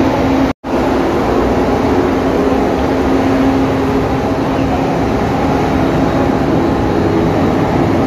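Ship's engines and deck machinery running with a steady, loud drone and a low hum. The sound cuts out for an instant about half a second in.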